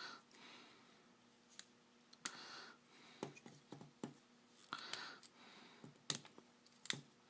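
Faint plastic clicks and handling of a Transformers action figure as its parts are moved and snapped into place during transformation, with sharp snaps about two seconds in and twice near the end.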